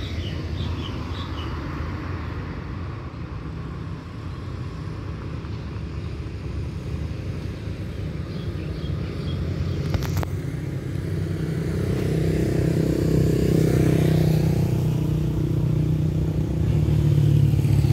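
Diesel locomotive engine running with a steady low hum, growing louder in the second half.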